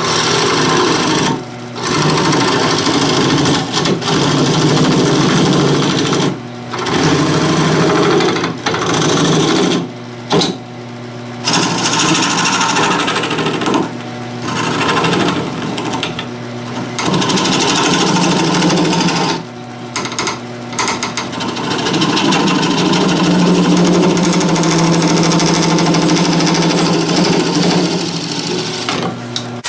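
Wood lathe running with a steady motor hum while a tool works the spinning green cherry wood in harsh, scraping stretches, broken by short pauses as the tool lifts off the wood.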